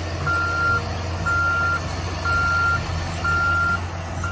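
Bulldozer backing up: its reverse alarm beeps at one steady pitch, about half a second on and half off, once a second, over the steady running of its diesel engine.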